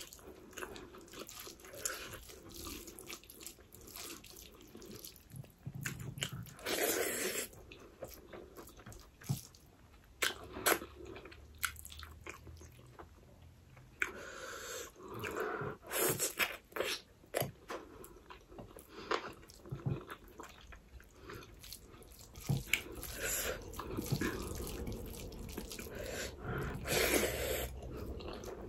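Close-miked mukbang eating sounds: chewing with wet mouth clicks and lip smacks as rice and pork are eaten by hand, with a few longer wet, noisy stretches.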